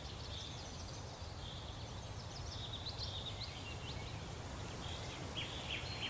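Faint outdoor nature ambience: a steady low background with scattered short, high chirps.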